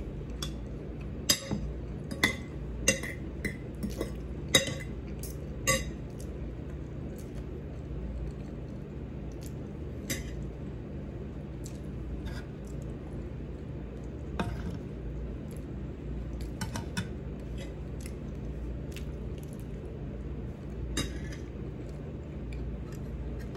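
Metal spoon clinking and scraping against a pan as food is scooped up: a quick run of sharp clinks in the first six seconds, then scattered ones, over a steady low hum.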